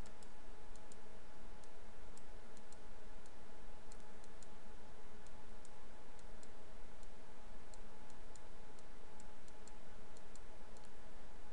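Faint, irregular computer mouse clicks, a few a second, over a steady hiss and low hum from the recording microphone.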